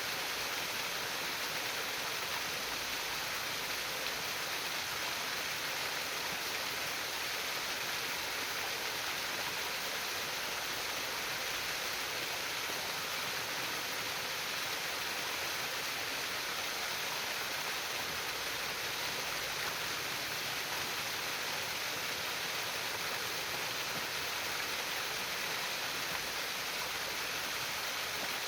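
Water in a stream trickling and babbling steadily, an even hiss with no breaks or changes.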